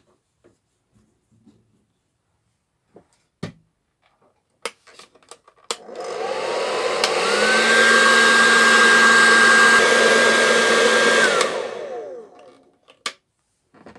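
Hair dryer switched on about halfway in: its whine rises as the motor spins up, runs steadily for about five seconds, then winds down as it is switched off. It is heating a vinyl doll head to soften it for a head swap. A few light handling clicks come before it.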